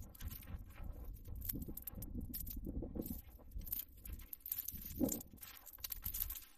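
Footsteps pushing through dense dry brush: bare twigs and branches scraping and snapping in irregular crackles, over a low rumble.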